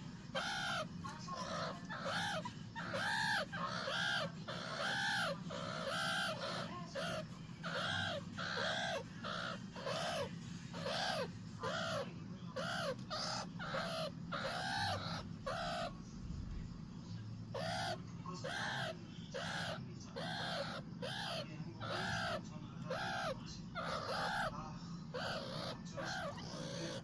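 Baby meerkat giving a long run of short calls, about two a second, each one rising then falling in pitch. The calls pause for about a second and a half some sixteen seconds in, then carry on.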